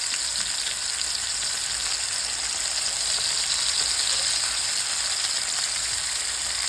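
Swordfish steaks sizzling steadily as they pan-fry in hot avocado oil.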